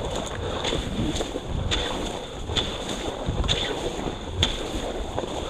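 Wind rushing over the microphone during skijoring, with a short sharp stroke about once a second.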